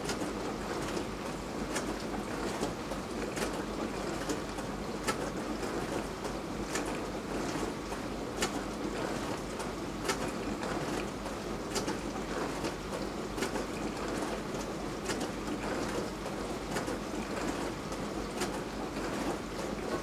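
Beko DWD5410W dishwasher in its wash cycle: water spraying steadily inside the tub, with a sharp tick recurring about every 1.7 seconds.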